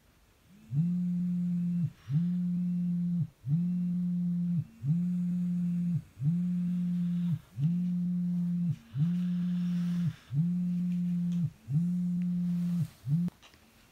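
Smartphone on vibrate buzzing as a wake-up alarm: a low, steady buzz about a second long, repeated about nine times with short gaps, the last buzz cut short.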